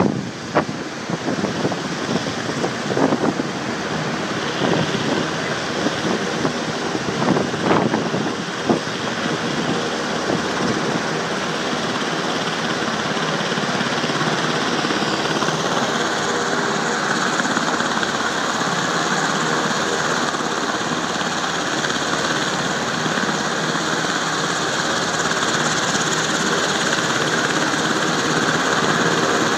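UH-60 Black Hawk helicopter running on the ground, its twin turboshaft engines and rotor making a steady whine and rumble. Wind buffets the microphone in irregular gusts during the first several seconds, and the helicopter grows a little louder and more even about halfway through.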